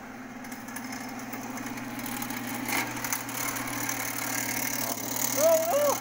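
Electric drain-cleaning machine running, its motor humming steadily while the cable turns in the clogged kitchen drain line, growing gradually louder. A brief rising-and-falling pitched sound comes near the end.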